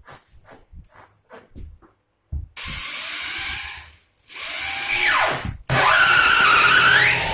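Cordless drill-driver driving screws through fibreboard into old floorboards, to fasten them to the joists and stop them squeaking. After a few light clicks it runs in three bursts; the motor's whine drops sharply in pitch as it labours at the end of the second run.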